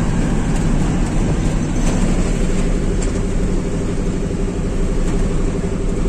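Eicher truck's diesel engine running steadily under way, with road noise, heard from inside the cab.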